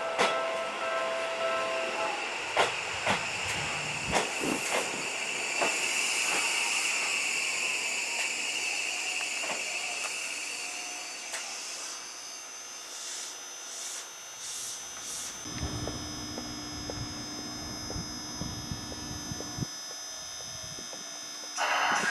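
Seibu 6000-series electric train standing at the platform: compressed air hisses from its brakes and doors, with several sharp knocks, then steady high whines from its onboard equipment.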